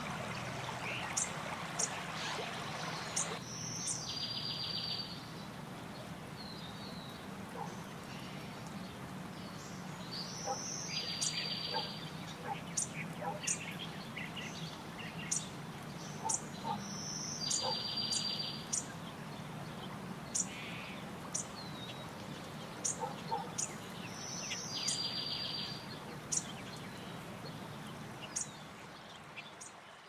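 A shallow stream flowing for the first few seconds, cutting off abruptly; then outdoor birdsong, with one bird repeating the same short song four times, about seven seconds apart: a high note followed by a trill about a second long, among brief high chirps from other birds, over a low steady hum.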